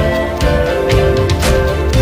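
Background music: a steady instrumental track with held notes over a regular beat.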